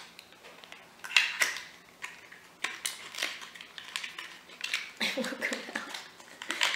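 A small cardboard product box being handled and opened to get the concealer tube out: irregular crinkles, clicks and scrapes of card.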